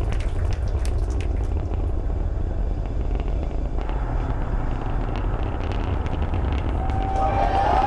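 Rocket engine noise from a Falcon Heavy's 27 Merlin 1D engines in ascent: a steady low rumble with scattered crackles. Near the end a crowd begins cheering.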